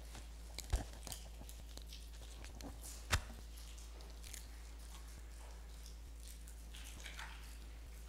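Small handling sounds as communion is taken close to the pulpit microphone: faint rustles and a few soft clicks, with one sharper click about three seconds in, over a steady low hum.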